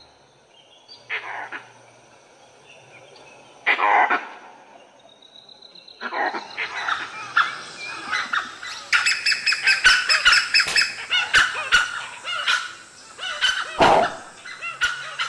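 Animal alarm calls: langur alarm calls at first, two short harsh calls a few seconds apart. From about six seconds in comes a dense, rapid chorus of short high-pitched calls and chatter, with one louder, deeper call near the end.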